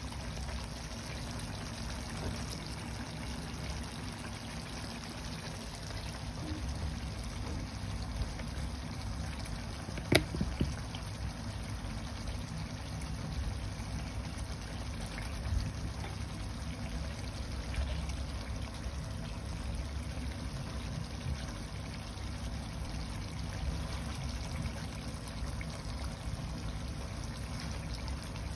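Adobo sauce simmering in a frying pan on a gas stove, a steady bubbling. A short sharp knock about ten seconds in, and a smaller one a few seconds later.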